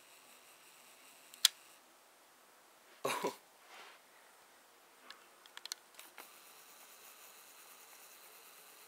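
Handling noise from the camera: one sharp click about a second and a half in, a short scuffing noise around three seconds, then a few light clicks near six seconds, over faint room hiss.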